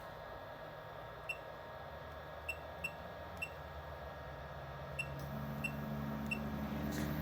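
Seven short electronic beeps at irregular intervals over a steady background hum. A low hum swells up in the last couple of seconds.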